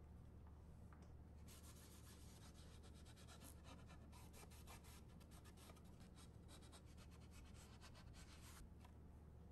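Faint scrubbing of a cloth rubbing the inside of a wooden cabinet wet with spray cleaner: a quick run of rubbing strokes from about a second and a half in until near the end, over a low steady hum.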